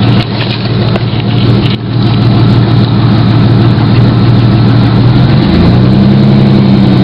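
1994 Chevrolet S10 Blazer's 4.3-litre V6 idling steadily as it warms up; about five and a half seconds in the engine speed steps up a little and holds there.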